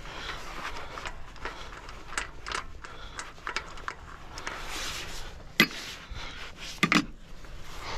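Tools and metal parts being handled and set down: scattered rustling and light knocks, with a sharp click a little past halfway and two close together near the end.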